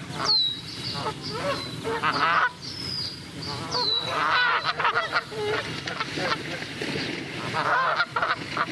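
Geese honking, a run of repeated wavering calls that overlap one another, with a high, quick falling whistle heard three or four times above them.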